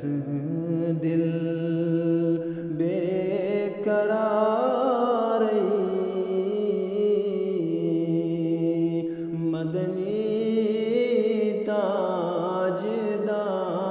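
A male voice singing a Kashmiri naat, an Islamic devotional song in praise of the Prophet, in long lines whose pitch slides up and down over a steady held drone.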